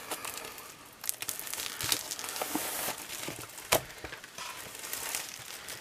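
Clear plastic wrapping crinkling and crackling as it is peeled off a pad of patterned craft paper, with the paper sheets rustling. Several sharp crackles stand out, the loudest about two-thirds of the way through.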